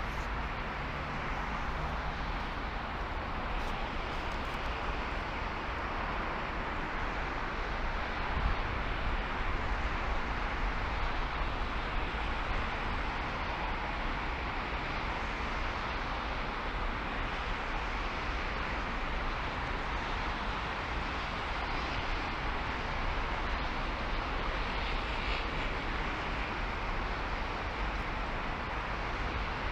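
Steady road and wind noise of a car driving at speed, an even rushing hiss over a low rumble.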